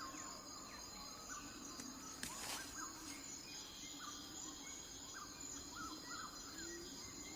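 Faint forest ambience: a steady high insect drone with scattered short, faint bird chirps.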